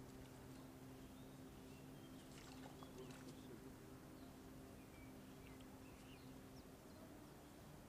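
Near-quiet ambience: a low steady hum that stops shortly before the end, with faint scattered bird chirps and a few soft clicks a few seconds in.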